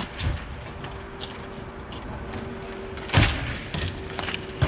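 Roller hockey play: sharp clacks of sticks and puck, the loudest about three seconds in and a few lighter ones after it, over a faint steady hum.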